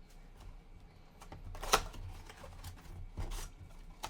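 Hands stripping the cellophane wrap off a trading card hobby box and opening the box: scattered crinkles, rustles and clicks of plastic and cardboard, with one sharp crackle a little under two seconds in.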